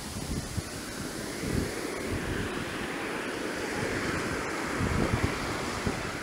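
Surf washing up the beach, a wave's wash swelling about a second in and running on, with wind buffeting the microphone.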